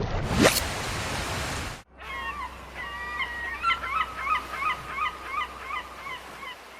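A loud rushing noise with a sweeping whoosh cuts off suddenly about two seconds in. It is followed by a run of short honking bird calls, repeated about twice a second over a low steady hum.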